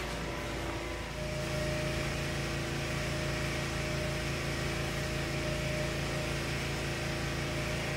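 Steady hum of a building's air-conditioning, with a few held tones, getting slightly louder about a second in.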